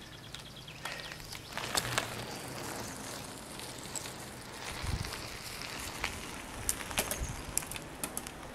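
A mountain bike rolls past close by and away, with its tyres on asphalt and scattered light clicks from the drivetrain. About halfway through there is a brief low rumble.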